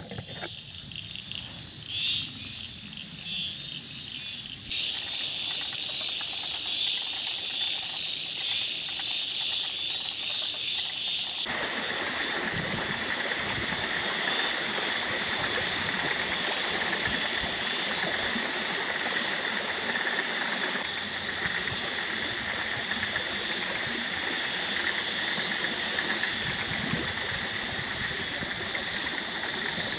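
Steady night chorus of calling frogs over trickling floodwater. It gets louder twice in the first dozen seconds.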